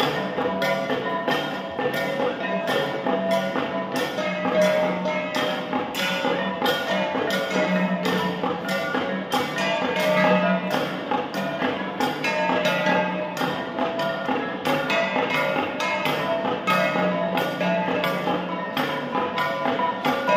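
An ensemble of flat bronze gongs (gangsa) struck by hand in an interlocking, steady, quick rhythm, the strikes ringing on over one another.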